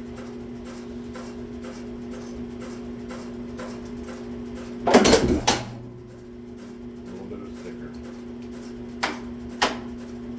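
Small punch press running a stamping run of brass buttons: a steady motor hum with faint regular ticking, a loud clatter lasting about half a second about five seconds in, and two sharp clicks near the end.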